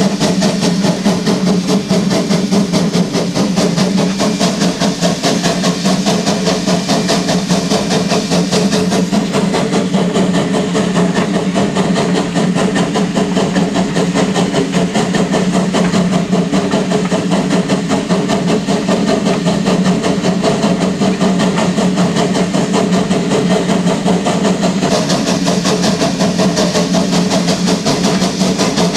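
Hammond Lumber Co 2-8-2T No. 17 steam locomotive standing, hissing steam steadily over a low steady hum. The hiss thins slightly from about nine seconds in until about twenty-five seconds in.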